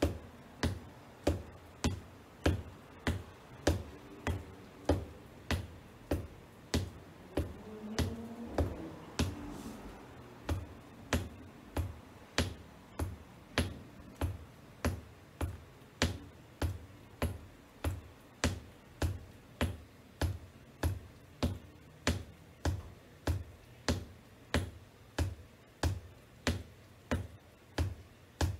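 Black wedge-heeled boots tapping on a hardwood floor in a steady, even rhythm, about three taps every two seconds.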